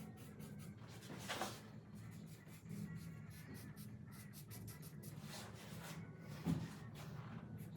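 Light scratching and rubbing strokes, with a louder scrape a little over a second in and a single knock near the end, over a low steady hum.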